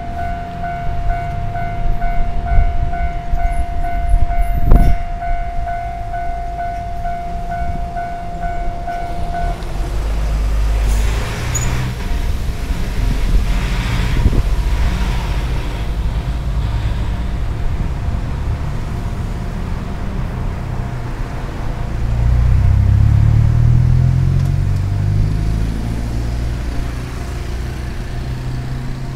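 Level-crossing warning bell ringing with a steady, repeating tone and a single knock partway through, then stopping about a third of the way in. Low traffic rumble follows, with a vehicle accelerating away, its engine note rising, about three-quarters of the way through.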